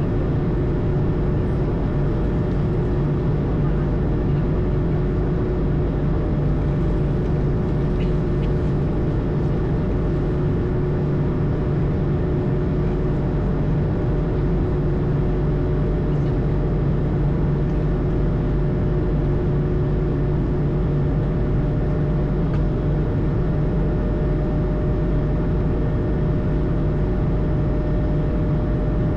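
Steady engine and airflow noise heard aboard an Airbus A220, its Pratt & Whitney PW1500G geared turbofans running evenly. The roar holds constant, with a few steady hums running through it.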